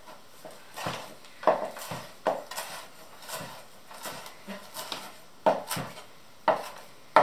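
Chef's knife chopping fresh parsley on a wooden cutting board: about a dozen irregular sharp knocks, the loudest in the last two seconds.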